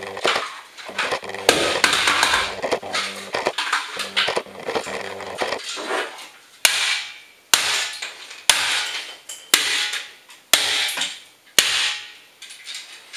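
Hammer blows on a small Fast Ethernet network switch: six sharp strikes about a second apart, each dying away quickly, after several seconds of clattering and rummaging.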